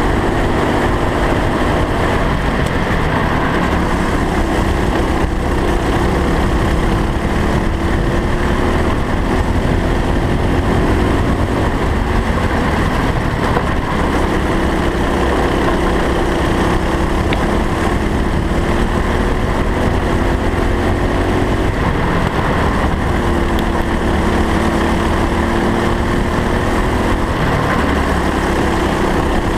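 Racing kart engine heard on board while lapping, its pitch climbing for several seconds as it accelerates and then dropping off, repeated five or six times, over a steady low rumble.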